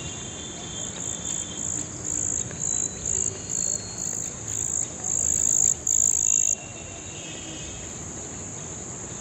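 Calling insects: a steady high-pitched shrill chorus. One louder caller sounds in repeated bursts that grow longer and louder, then cuts off suddenly about six and a half seconds in.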